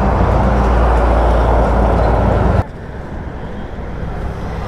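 Loud roadside traffic noise with a steady low engine drone. It cuts off abruptly about two and a half seconds in, leaving quieter road noise.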